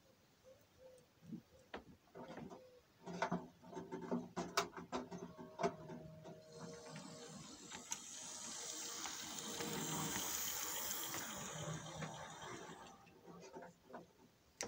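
Model train running past on its track: a string of sharp clicks and clacks about three seconds in, then a rushing rumble of wheels on rail with a low motor hum that swells as the cars pass close and fades away.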